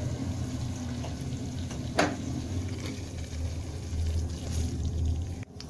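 Thick masala gravy simmering in a steel pot and being stirred with a spoon, over a steady low hum. There is one sharp knock about two seconds in.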